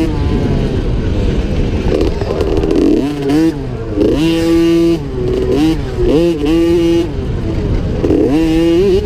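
A 50cc two-stroke youth motocross bike's engine revving hard, its pitch repeatedly climbing and dropping as the throttle is opened and closed, held steady for a moment about four seconds in and again near seven seconds.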